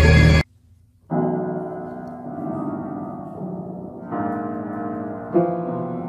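Piano music: chords struck about a second in and left to fade, with new chords a little after four and five seconds. It opens with the end of a loud, harsh sound that cuts off abruptly into a brief silence.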